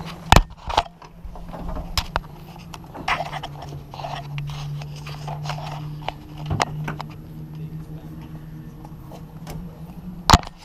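Handling noise of an action camera being carried and clipped onto a mount: repeated sharp knocks, clicks and scrapes on the microphone over a steady low hum. The loudest knocks come about half a second in and again near the end.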